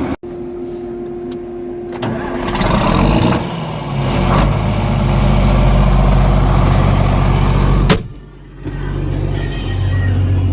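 A large engine starting up and then running steadily and loud; the sound cuts off suddenly about eight seconds in and another stretch of steady engine running follows.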